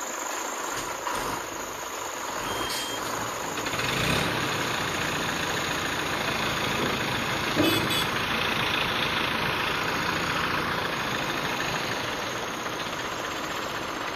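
Heavy diesel truck engine running steadily, with a low thump about four seconds in and a brief clank near eight seconds.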